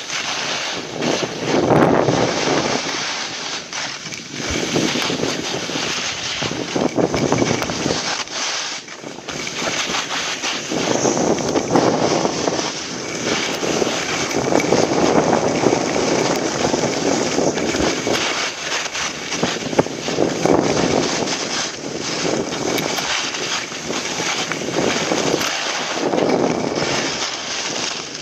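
Wind rushing over a body-worn camera's microphone during a fast descent of a snowy ski slope, mixed with the hiss of sliding on snow. It swells and eases in waves every few seconds.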